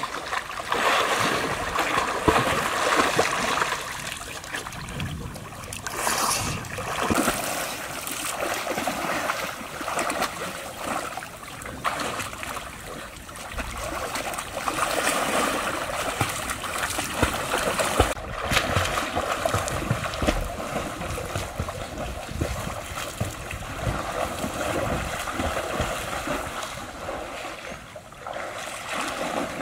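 Pool water splashing and sloshing irregularly as people swim and move about in it.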